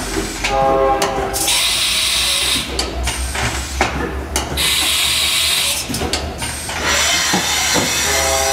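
Haas VF-3B vertical machining center running a short looped program with tool changes. A whine with several pitches sounds about half a second in and again at the end, with two bursts of hiss, knocks, and a steady low hum in between.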